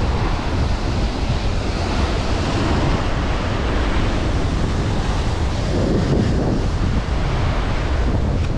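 Heavy ocean surf breaking and churning against rocky shoreline, with wind buffeting the microphone.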